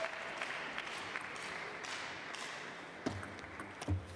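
Crowd applause dying away, then a table tennis ball being played: a sharp knock about three seconds in and a louder one near the end, as the ball is struck and bounces on the table.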